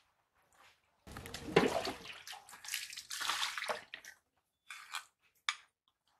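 Water splashing and sloshing as steel bowls are rinsed at a hand pump. It starts suddenly about a second in, runs for about three seconds, and is followed by a couple of short splashes.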